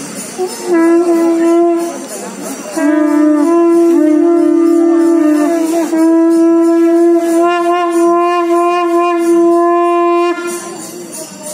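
A horn blown in three long, loud, steady notes on one pitch, the last held about four seconds and cut off sharply. During the middle note a second, slightly lower horn sounds with it.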